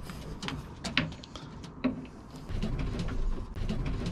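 Racing pigeons cooing low and repeatedly, louder from about halfway in. In the first two seconds there are a few sharp clicks and rattles from the wire front of the nest box being handled.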